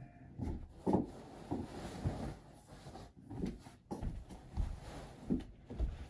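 Soft, irregular thumps and rustles of bedding being handled and footsteps moving around a bed, about one to two knocks a second.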